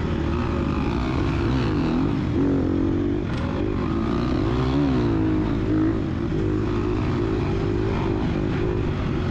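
A 2022 Gas Gas EX250F dirt bike's single-cylinder four-stroke engine running hard under race riding, its revs rising and falling again and again as the throttle is worked.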